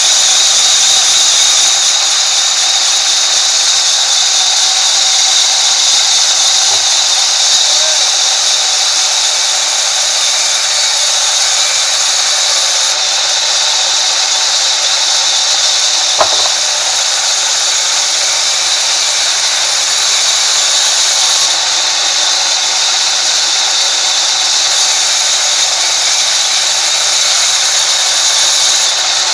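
Sawmill band saw running and ripping through a log, a steady loud high hiss and whine of the blade in the wood. A single sharp knock comes about sixteen seconds in.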